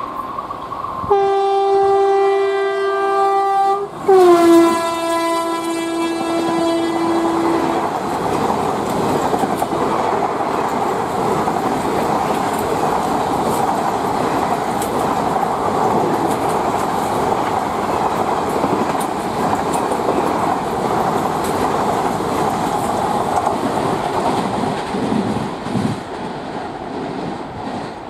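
WAP4 electric locomotive's horn sounding two blasts, the second dropping in pitch just after it starts as the locomotive passes. Then the 24-coach express rushes through at speed, a steady rushing noise with clicks of the wheels over rail joints, fading near the end.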